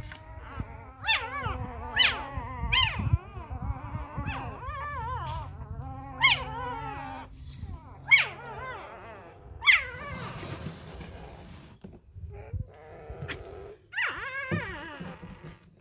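Newborn Labrador puppies crying and whimpering: a string of high, wavering squeals, about seven sharp cries, with softer whining in between.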